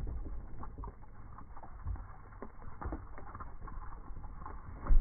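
Slowed-down, muffled sound of ping pong balls falling and pattering down around a trash can after a liquid-nitrogen bottle burst: a low rumble with many scattered small taps.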